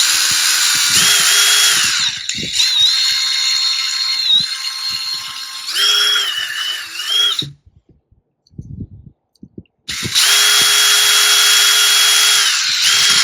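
Small electric drill running in two spells, with a gap of about two seconds between them, its whine stepping up and down in pitch as the trigger is eased, while it enlarges small holes to fit the wires.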